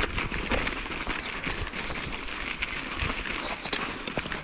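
Mountain bike ridden over gravelly dirt: tyres crunching and the bike rattling with many small clicks and knocks over a steady low rumble.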